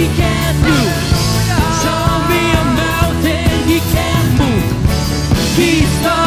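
Live praise-and-worship band playing a rock-style song with drums, bass and guitars, with voices singing the melody.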